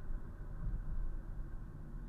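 Steady low rumble of a 2011 Mazda 3 under way, engine and road noise heard from inside the cabin.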